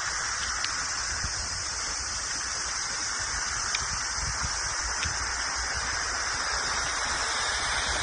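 Steady hissing outdoor background noise with an uneven low rumble, like wind and distant street ambience on a phone microphone.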